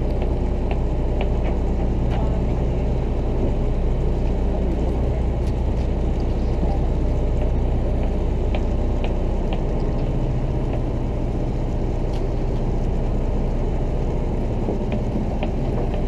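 Boat engine running steadily: a low, even rumble, with a few faint scattered ticks over it.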